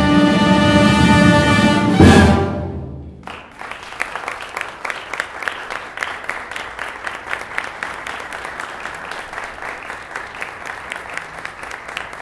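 A concert wind band of brass, woodwinds and percussion holds a loud final chord, ending on an accented hit about two seconds in that rings away. The audience then applauds steadily.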